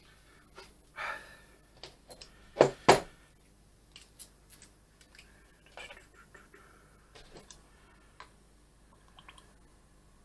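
Small handling clicks and knocks from a paint jar and spray gun being picked up and fitted together on a workbench. There are two sharp, much louder knocks close together about two and a half seconds in.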